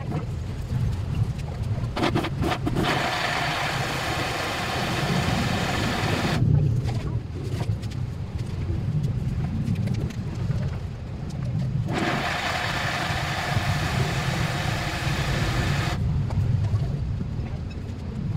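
Small electric blender running twice, for about three to four seconds each time, starting about three seconds in and again about twelve seconds in, chopping fresh red chillies and then the chillies with fish sauce. A steady low rumble runs underneath throughout.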